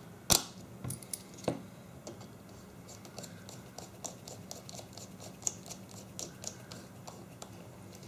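Small irregular clicks and ticks of wires being tucked into a plastic housing by hand, with a sharper click about a third of a second in and another at about a second and a half.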